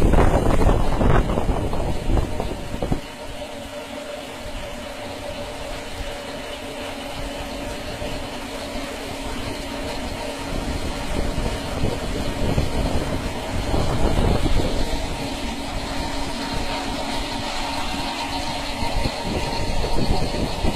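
A machine running with a steady hum of several held tones over a rushing noise; the sound is louder and rougher for about the first three seconds, then settles.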